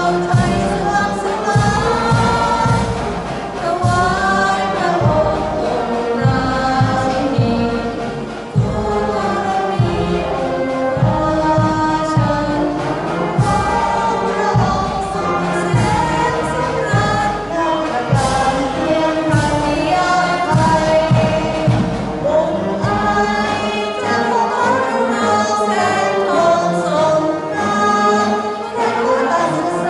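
Many voices singing a slow song together, accompanied by a school marching band whose drums keep a steady beat. The drum beat drops out near the end while the singing goes on.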